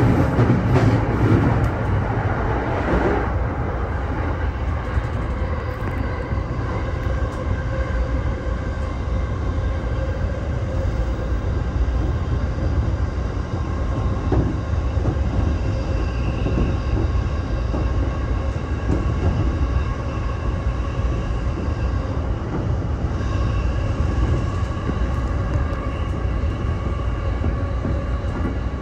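E231-series electric commuter train running along the line, heard from behind the cab: a steady low rumble of wheels on rails with a steady whine on top. A run of clatters comes in the first few seconds.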